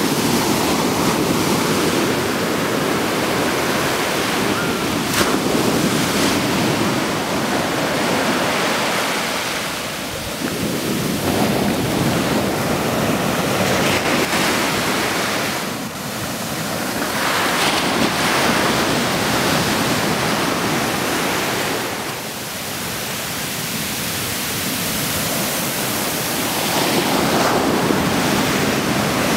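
Ocean surf: waves breaking and foaming up a sandy beach, a steady wash that swells and eases every several seconds.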